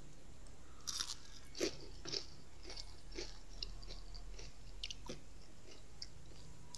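A person biting into and chewing crispy fried onion rings. A few sharp crunches come about a second in, the loudest just under two seconds in, then a run of crunchy chews that thins out after about five seconds.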